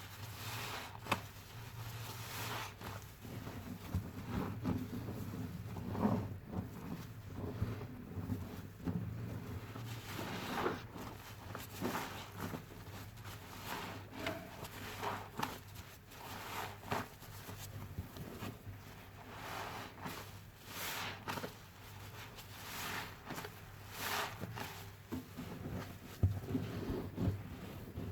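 A foam-soaked sponge squeezed over and over, giving wet, bubbly squelches about once a second, uneven in strength.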